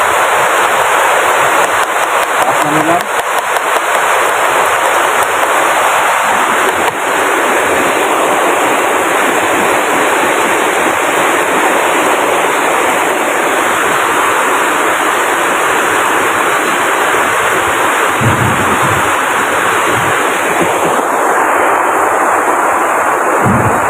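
Heavy rain falling steadily, a loud even hiss that drowns out everything else.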